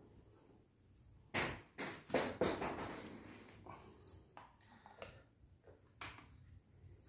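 Plastic knocks and clatter from a paint scoop and a refillable paint roller being handled over a paint bucket while paint is loaded into the roller: a cluster of sharp knocks between about one and a half and two and a half seconds in, then a few fainter taps.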